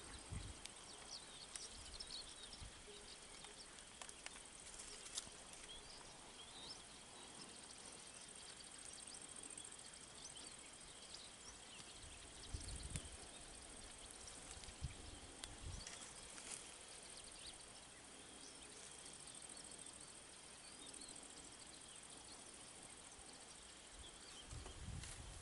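Quiet dusk countryside ambience: a faint steady insect trill with a few faint, short bird chirps. Now and then there is a soft low thump, twice in the middle and once near the end.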